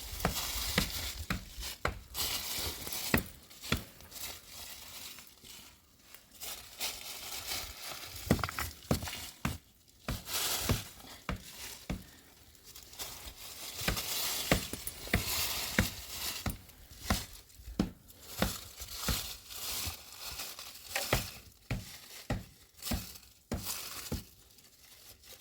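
Rustling and crinkling, broken by many sharp clicks and short hissy bursts, as of something being handled.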